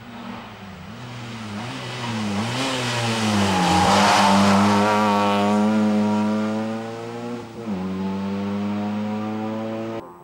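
Rally car engine at high revs coming through a bend, the pitch dipping and rising as the driver lifts and gets back on the throttle, loudest about four seconds in as it passes, then pulling away at high revs with a sharp drop in pitch near the end from a gear change.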